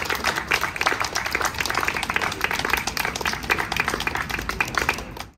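Crowd applauding with dense hand-clapping, which cuts off abruptly near the end.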